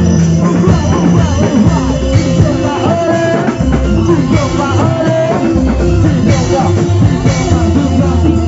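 Loud bleknong band music with drums, a steady bass line and a wavering singing or melody line.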